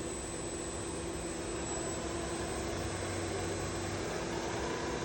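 2010 Sharp TMV vertical milling machine's spindle running in low gear: a steady motor hum with several constant tones over an even hiss, growing slightly louder near the end.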